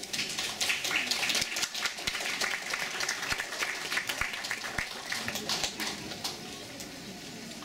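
Audience applauding, a dense patter of clapping that thins out and fades toward the end.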